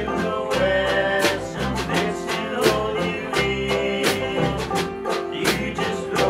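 Bluegrass-country band playing live: banjo, acoustic guitar, upright bass and a snare drum kit, with a steady beat of drum strikes under plucked string notes.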